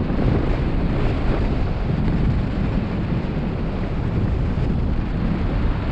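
Wind rushing over the microphone of a paraglider in flight: a steady, heavy low rumble.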